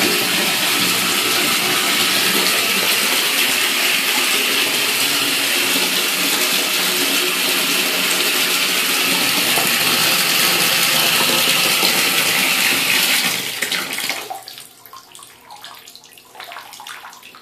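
Water running from a bathtub tap into the tub, a steady rush that is shut off about fourteen seconds in, leaving only faint trickles and drips.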